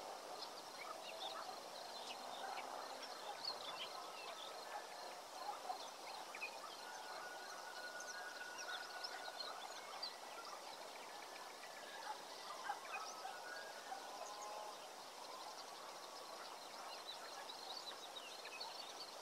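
Outdoor ambience of several small birds chirping and singing, with many short, scattered high calls over a faint steady hiss.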